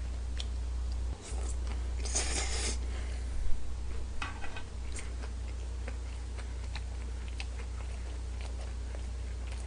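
A person eating stir-fried udon noodles: a slurp of noodles about two seconds in, then chewing with small wet clicks and smacks. A steady low hum runs underneath.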